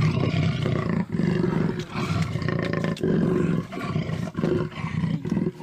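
Loud, deep roar held at a steady low pitch, coming in a series of stretches about a second long with short breaks between them.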